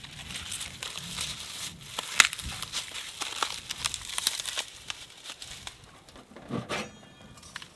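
Dry bark and split firewood being handled, with irregular crinkling, crackling and small wooden knocks, one sharper knock a couple of seconds in. Near the end comes a thump and a short scrape as wood is put at the wood stove.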